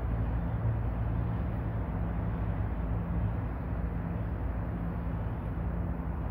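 Steady drone of an engine-driven pump draining flood water, a low hum that holds one pitch throughout.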